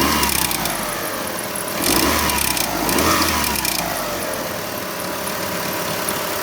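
Kia Optima 2.4-litre four-cylinder engine blipped three times, each rev rising and falling back before it settles to idle, with clicking and popping over the running. The owner traces the noise to the alternator, whose worn bearings can make such a tick.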